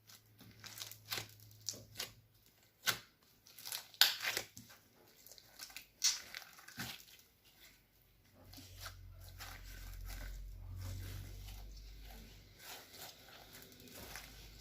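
Slime being stretched and squeezed: a run of sharp crackles and pops, loudest around four seconds in. After about eight seconds the pops thin out and a low steady hum takes over.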